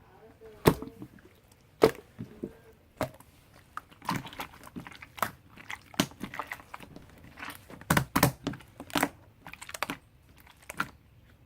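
Marbled slime being squished and poked by hand, giving irregular sharp pops and clicks, with a quick cluster of them about eight seconds in.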